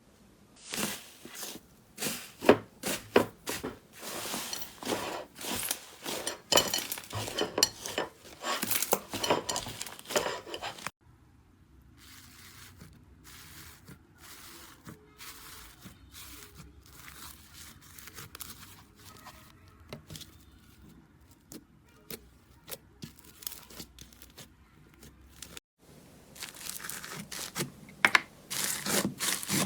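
Slime being handled close to the microphone: a dense run of crackling pops and tearing sounds, dropping at about eleven seconds to faint, soft handling, and turning loud and crackly again near the end.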